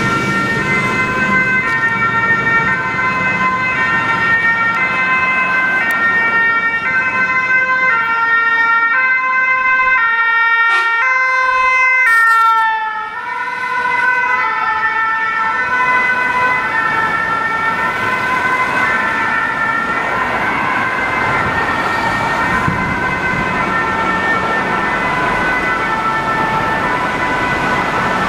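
Ambulance two-tone siren alternating between a high and a low note, each held a little under a second. About twelve seconds in, the pitch drops as the ambulance passes close by, then the siren goes on more faintly as it moves off, over city traffic noise.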